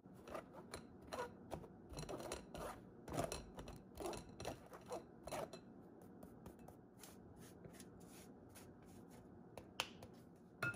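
Spatula scraping and pushing flour through a fine stainless-steel mesh sieve in quick scratchy strokes, about two a second. Then lighter rustling as the sieve is shaken, and two sharp clicks near the end.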